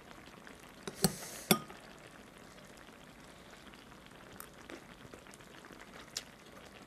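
Mealtime eating sounds: a metal spoon and chopsticks clicking against the pot. There are two sharp clicks about a second in with a brief rush of noise between them, then only a few faint ticks.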